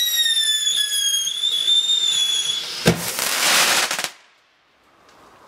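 A whistling firework: a loud high-pitched whistle that sags slightly in pitch for about two and a half seconds, then a sharp bang about three seconds in followed by a second of hissing crackle that stops abruptly.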